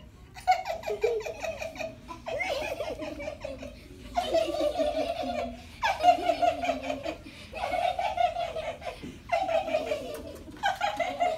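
Made-up laughter in a dainty, high-pitched 'lady having her tea' style, from a woman and a group of children copying her. It comes in about seven short bursts of rapid 'ha-ha' pulses with brief breaks between them.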